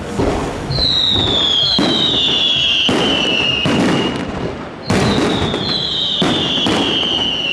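Castillo fireworks display: a rapid series of bangs from bursting aerial shells, with two long whistles that fall slowly in pitch. The first whistle starts just under a second in, the second about five seconds in.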